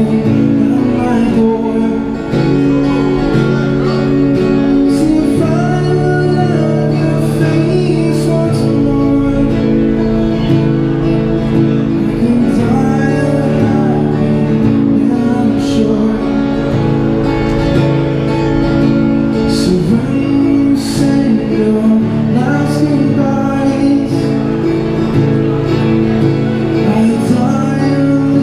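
Amplified acoustic guitar playing a steady song through a small busking amp, with a voice singing over it.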